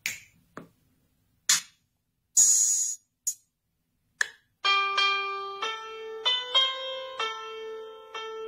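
A few sharp finger snaps and short percussive hits with gaps between them. Then, about halfway through, a smartphone piano app plays a slow melody of sustained electronic piano notes.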